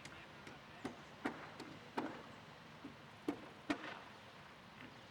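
Roofers' hammers striking on the roof: irregular sharp knocks, about two a second at their quickest, with uneven pauses between them.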